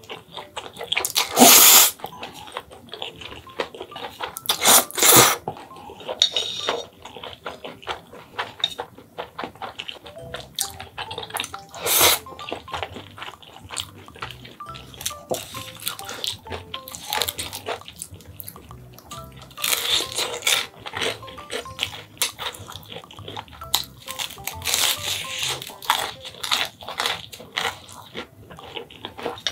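Close-up eating sounds of spicy stir-fried ramen noodles: loud slurps, several times, with wet chewing and clicks in between, and music playing underneath.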